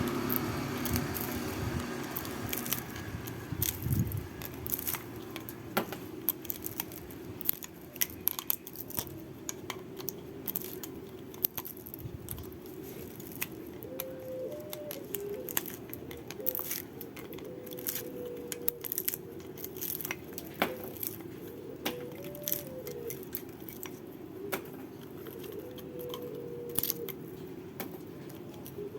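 Frequent small clicks, rattles and clinks of metal tools and fan parts being handled, over a steady low hum.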